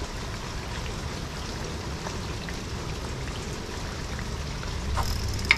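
Steady monsoon rain falling, an even hiss with scattered drop taps, and one short sharp click near the end.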